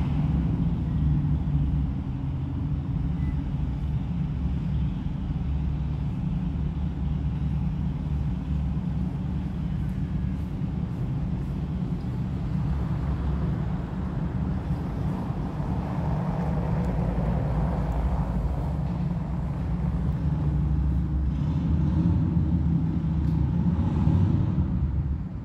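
Steady low rumble of vehicle engines in nearby city traffic, with a passing swell of louder traffic noise in the middle.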